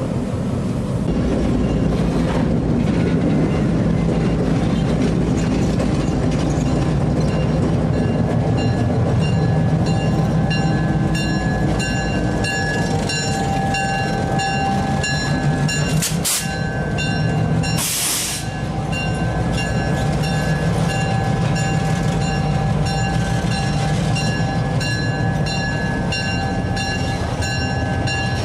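EMD SD38 diesel-electric locomotive running with a steady low drone. Higher ringing tones join partway through, and two short hisses come about halfway through.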